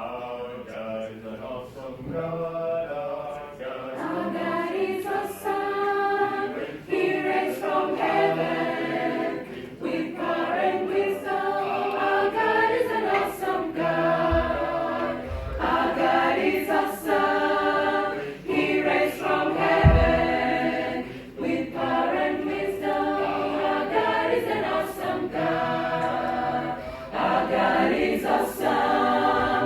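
A praise team singing a gospel song together as a choir, several voices in harmony. A few low thumps come in about halfway through.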